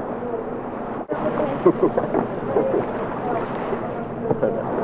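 Wind rumbling on the microphone, with indistinct voices of people close by.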